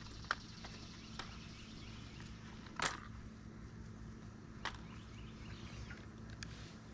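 A few light metallic clicks and clinks as small metal hardware and a cordless drill are handled against a wooden board, four or so spread out, the one about three seconds in the loudest.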